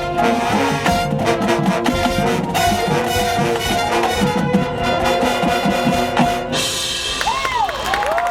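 Marching band brass and drums playing together, stopping abruptly about six and a half seconds in; the crowd then cheers, with a few rising and falling whistles.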